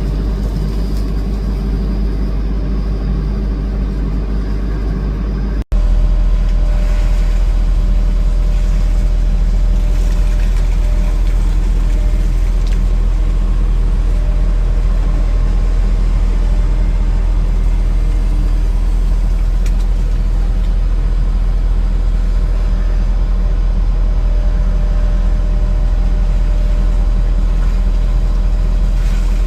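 Heavy diesel engines of an excavator and dump truck running steadily with a deep rumble. The sound drops out for an instant about six seconds in and comes back with a heavier low rumble.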